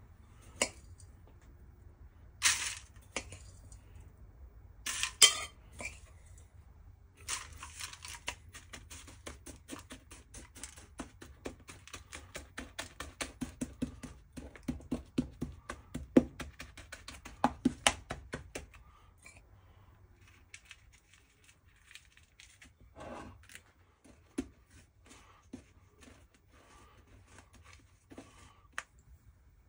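Metal spoon pressing graham cracker crumbs into a disposable aluminium foil pie pan. A few loud crinkles of the foil come first, then a long run of quick taps and scrapes, several a second, growing louder, then a few scattered taps.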